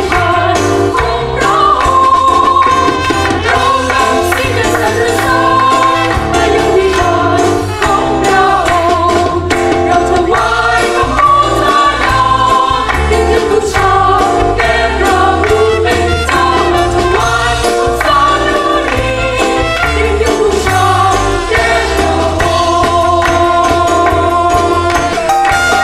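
Christian worship song sung in Thai by a group of voices over instrumental backing with a steady beat, praising God with lines about bringing praise into His temple and offering thanks.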